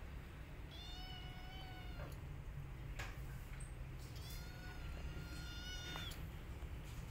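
A cat giving two long, drawn-out cries, each about a second and a half, the second a few seconds after the first. They come during a scuffle in which an adult cat turns on a kitten.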